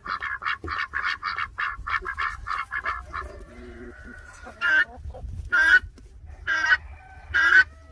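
A flock of white domestic ducks and chickens calling: a quick run of short calls for about three seconds, then loud single quacks about once a second from about five seconds in.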